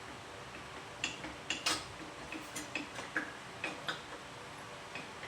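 Light, irregular metallic clicks and taps, about ten in a few seconds, as a steel engine mounting bolt is worked out of a motorcycle frame with gentle persuasion.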